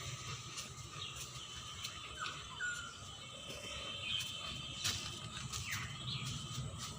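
Birds chirping in short, scattered calls over a steady low background rumble, with a few faint clicks.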